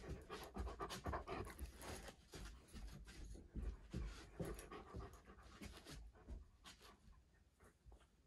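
A Doberman panting and sniffing in quick, irregular breaths, louder in the first few seconds and fading toward the end.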